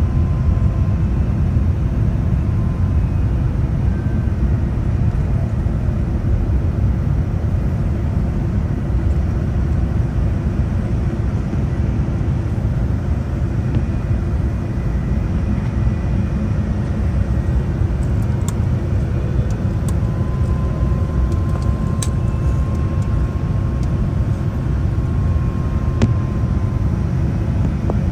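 Cabin noise inside a Boeing 787-10 airliner on its approach to land: a steady low rumble of the engines and rushing air, with faint steady whining tones over it and a few light ticks in the second half.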